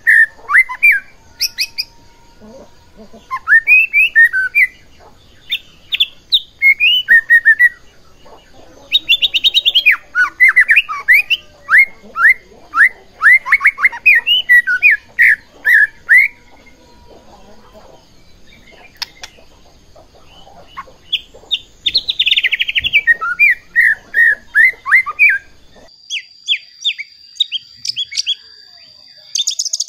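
White-rumped shama (murai batu) singing in bursts of fast, varied whistled and chattering notes, with short pauses between phrases. Near the end the background drops and a steady high tone runs under quicker, higher notes.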